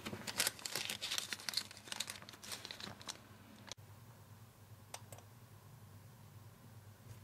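Crinkling and rustling of a rubber-gloved hand rummaging under a wooden shelf, with many sharp crackles, which cuts off abruptly; then a low steady hum and a single computer mouse click.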